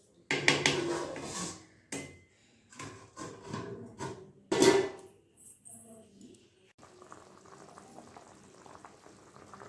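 A steel spatula stirring and scraping through egg curry gravy in a kadai. A steel lid then clanks down onto the pan about four and a half seconds in. After that comes a faint steady bubbling of the curry simmering.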